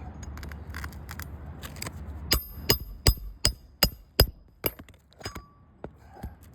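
Hand tool striking metal on a shingle roof: a quick run of about eight sharp, ringing metallic taps, a little over two a second, starting about two seconds in, then a few lighter ticks. Wind rumbles on the microphone before the taps.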